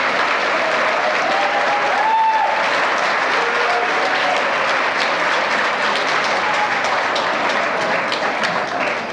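Audience applauding steadily in an auditorium, with a voice calling out over it about two seconds in.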